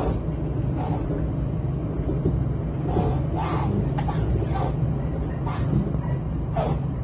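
Regional train running along the track, heard from inside the passenger car: a steady low rumble, with a few brief faint higher sounds over it.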